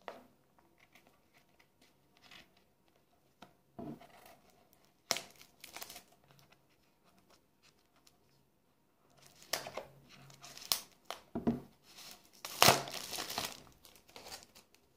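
Retail packaging of an earbud box being handled and opened by hand: crinkling and tearing in scattered bursts, the loudest a couple of seconds before the end.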